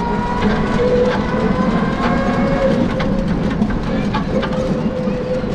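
Battery-powered auto-rickshaw driving along: a steady electric-motor whine that rises slightly in the first second, over road and wind rumble, with scattered clicks and rattles from the body.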